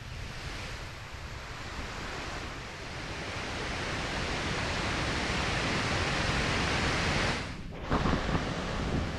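Waterfall water rushing, a steady noise that grows louder over the first several seconds, broken by a brief drop near the end, followed by a few low thumps.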